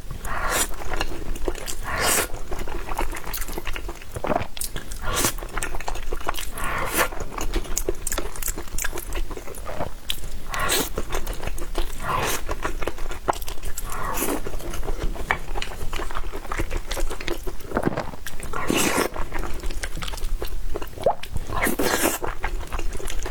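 Close-miked chewing of rice-flour steamed pork, a run of many short mouth clicks and bites.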